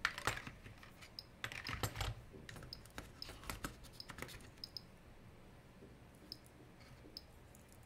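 Small metal watch cases and parts clicking and rattling as they are picked up and set down in a plastic parts tray. The handling is busiest in the first half. After that only faint, short, high ticks are left.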